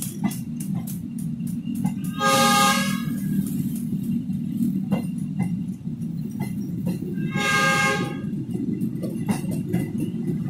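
KAI passenger train of K3 coaches rolling out of the station: a steady low rumble with irregular clicks of wheels over the rail joints. The train horn sounds twice, each blast about a second long with several tones at once, about two seconds in and again about seven seconds in.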